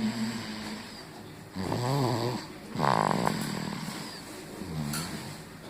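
Seven-month-old baby snoring in sleep, a snoring breath every second or so, some with a wavering pitch.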